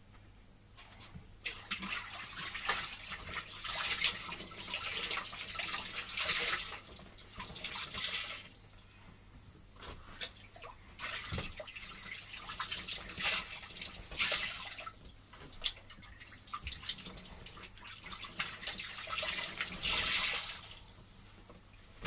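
Wet laundry being lifted out of the rinse water in a twin-tub washing machine's wash tub: irregular splashing and dripping in surges with short pauses, over a faint steady low hum.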